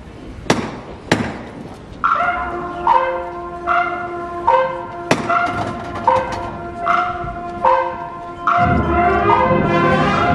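Two sharp knocks, then bells ringing in an even peal of alternating notes, a strike a little under every second, with a third knock mid-way. Near the end a processional brass band strikes up and plays over them.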